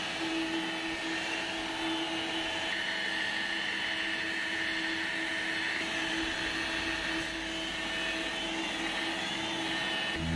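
Electric rotary polisher with a foam pad buffing car body paint, its motor giving a steady whine with a few fixed tones, while the freshly resprayed panel is polished.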